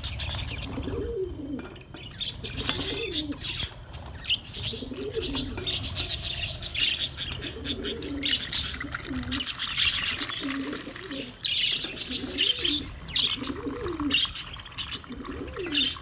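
Aviary birds calling: a dove cooing over and over in low rising-and-falling coos, under busy high-pitched chirping from budgerigars.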